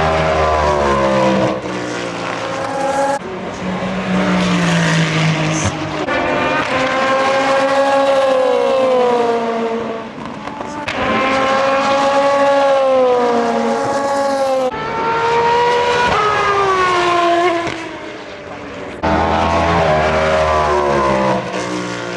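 Racing car engines at full revs, several cars in turn in a string of short cuts. Each engine note rises and falls in pitch as the car accelerates, shifts gear and passes.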